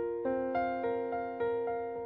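Background piano music: evenly paced notes, about three or four a second, each struck and fading over held chords.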